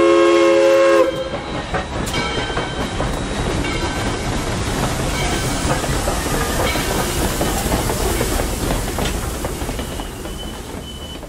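A steam locomotive's whistle sounds a held chord that cuts off about a second in. Then the Southern Railway 2-8-0 No. 630 and 2-8-2 No. 4501 and their passenger cars roll past, with the rumble and clickety-clack of wheels over rail joints fading as the cars go by.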